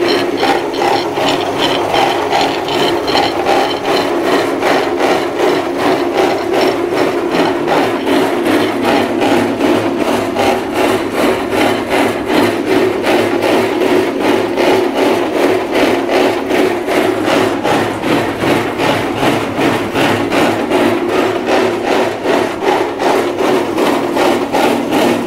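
Maksindo MKS 900 electric noodle-cutting and dough-sheeting machine running, its rollers and cutter turning as a dough sheet is cut into noodles. A steady mechanical running sound with a quick, regular pulse throughout.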